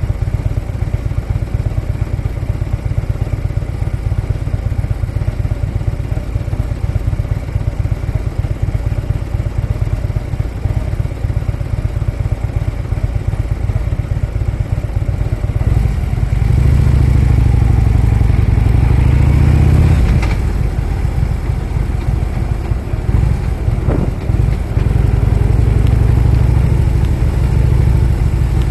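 Harley-Davidson V-twin motorcycle engine running on the move. It is steady for the first half, then louder from a little past halfway with rising pitch as the bike accelerates, with a short drop about two-thirds in before it pulls again.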